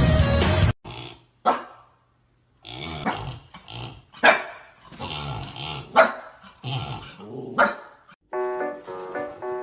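A dog barking about five times, sharp and loud, with growling between the barks.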